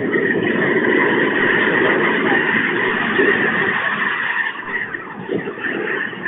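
A large flock of wild geese calling all at once, many honks merging into a dense, steady clamour that eases slightly after about four and a half seconds.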